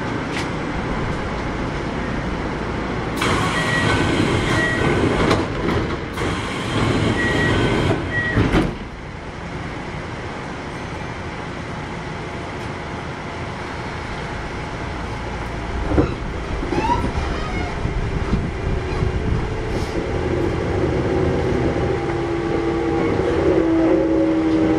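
Interior sound of a Kintetsu 1021 series train with a Hitachi GTO VVVF inverter. A louder, noisier stretch ends abruptly about eight and a half seconds in, leaving a steady hum, with a single knock around sixteen seconds. Near the end the inverter's whine rises in steps as the train starts to accelerate away from a station stop.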